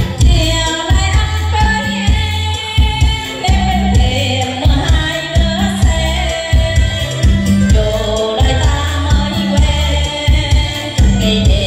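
A woman singing a Vietnamese song into a handheld microphone, amplified over backing music with a steady bass beat. Her voice comes in right at the start after the instrumental intro.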